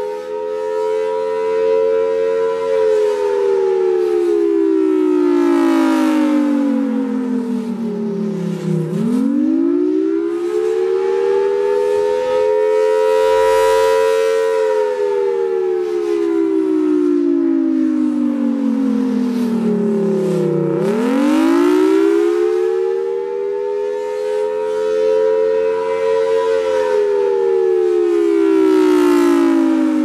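FS&S Thunderbolt 1000AT rotating-horn warning siren sounding the attack signal: its tone holds high, falls over several seconds, then swoops quickly back up, repeating roughly every twelve seconds.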